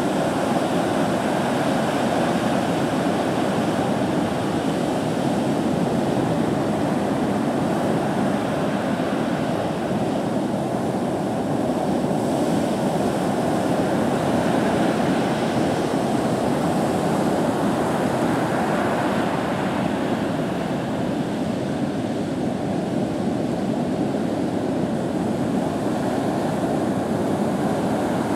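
Heavy hurricane-swell ocean surf breaking and washing ashore in a steady, even rush.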